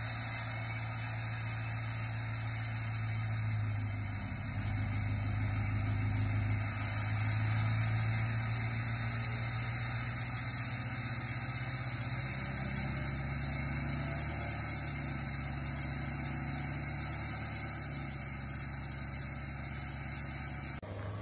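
Duramax 6.6-litre V8 turbo-diesel pickup idling steadily at its exhaust tip, a low, even rumble.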